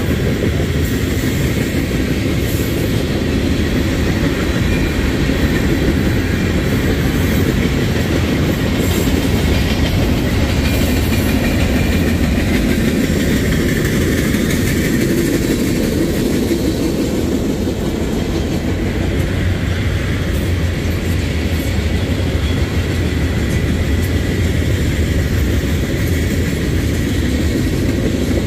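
Freight cars of a Union Pacific manifest train rolling past steadily: a continuous, even rumble of steel wheels on the rails.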